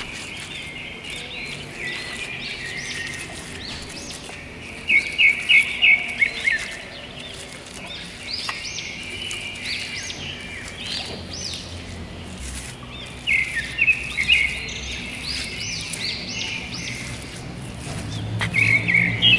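Small birds chirping: many quick, high chirps, coming in loud flurries about five seconds in, again about thirteen seconds in, and near the end.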